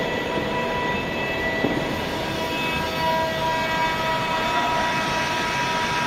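Steady machinery drone in a heat-treatment plant: dense noise with several steady whining tones held throughout, and one brief knock about one and a half seconds in.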